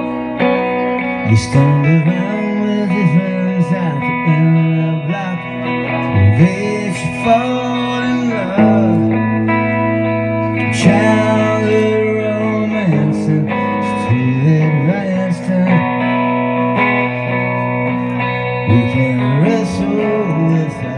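Live solo rock performance: a man singing at the microphone over his own electric guitar played through an amplifier.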